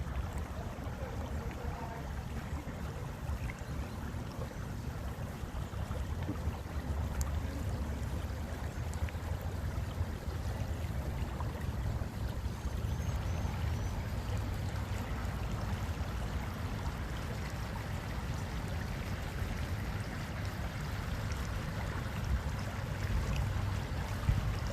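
A stream of flowing water rushing steadily, with a short run of faint high chirps about halfway through.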